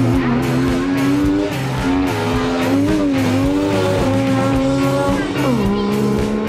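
Background music with a steady beat and a gliding melody line, over a classic rally car driving past.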